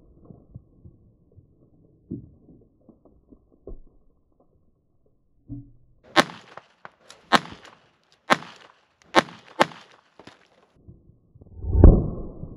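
Five shots from a Beretta 21A .22 LR pistol, fired about a second apart with the last two close together. Near the end comes a heavier low thump, the loudest sound.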